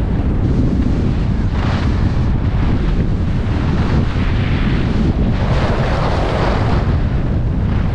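Strong wind rushing over a GoPro HERO9's microphone while riding downhill at speed, with a steady low rumble. Over it come swells of hissing snow as edges carve across groomed snow, about a second and a half in and again for a couple of seconds in the middle.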